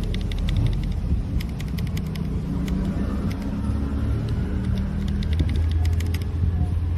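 Typing on a mechanical keyboard fitted with JERRZI Seashells factory-lubed linear switches: rapid keystroke clacks, with a short pause about a second in. Under them runs a steady low rumble, louder than the keystrokes.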